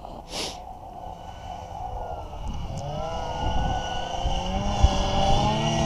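Snowmobile engine approaching and growing steadily louder, its pitch rising and falling as the throttle is worked. A brief hiss sounds about half a second in.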